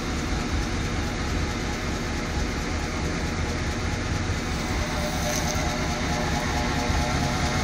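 Chevy C1500 pickup's engine idling steadily, heard at the rear of the truck through its exhaust: a steady low rumble.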